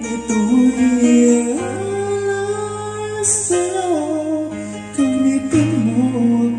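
Karaoke track playing a slow Tagalog song, with a voice singing the melody over guitar accompaniment.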